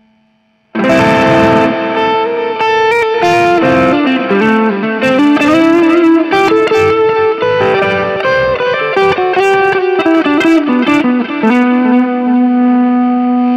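Electric guitar played through a Soldano SLO 30W Mini amp head with effect pedals plugged into its input. It comes in suddenly about a second in with a melodic line of single notes and a few string bends, and ends on one long held note.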